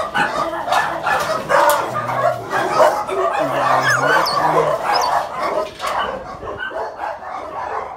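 A loud, continuous chorus of many dogs barking and yelping at once inside a crowded kennel building, the barks overlapping without a break.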